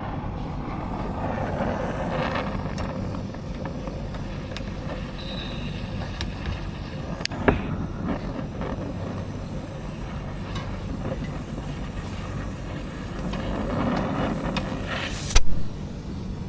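Brazing torch flame running steadily on a copper suction pipe being joined to a replacement scroll compressor. A sharp snap comes about a second before the end, with a fainter one midway.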